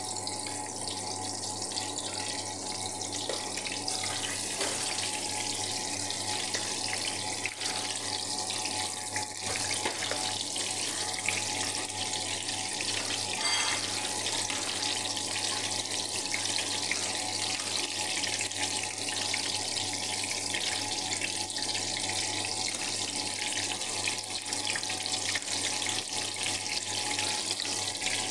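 Eggplant slices shallow-frying in hot oil in a pan, a steady sizzle, frying until golden brown.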